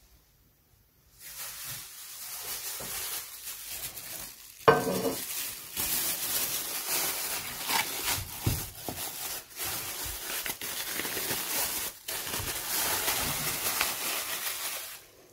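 Thin clear plastic film crinkling and rustling as it is pulled and stretched by hand over the rim of a plastic bowl, with one sharp, louder crackle about five seconds in. It starts about a second in and stops just before the end.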